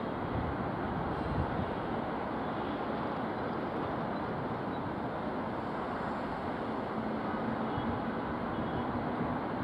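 Steady low rumble of distant traffic, with no single event standing out.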